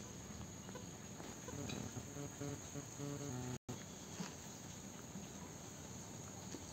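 Crickets chirring steadily in the background, with a low pitched drone for a couple of seconds in the middle. The sound drops out for an instant just past halfway, and there is a single click soon after.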